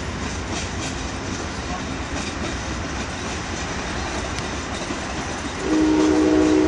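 A passing train: a steady rumble of wheels on the track, then the train's horn sounds a loud chord for about a second near the end.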